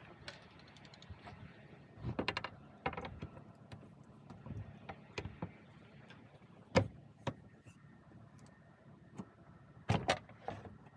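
Clicks, taps and knocks of a locksmith's tools working a locked door to open it during a lockout. They come as a quick rattling run of clicks about two seconds in, then scattered taps, with a sharp knock near the middle and another near the end.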